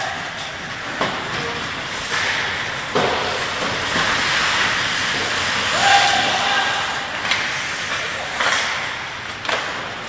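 Ice hockey play in an indoor rink: skate blades scraping the ice in a steady hiss, broken by several sharp clacks of sticks, puck and boards. A short shout rises about six seconds in.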